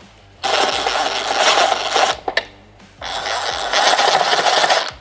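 Cordless power screwdriver running in two bursts of about two seconds each, driving in the screws that hold a motorcycle fairing's top plate.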